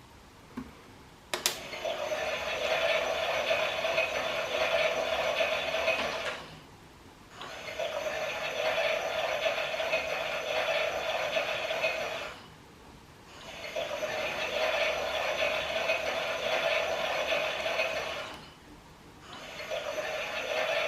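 Klein toy Miele washing machine running its pretend wash: a click about a second in, then a rattling whirr in runs of about five seconds broken by short pauses, like a drum tumbling and resting.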